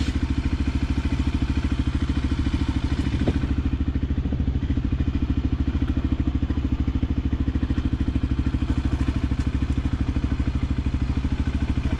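Voge 300 Rally's single-cylinder engine idling steadily, with a fast, even pulse.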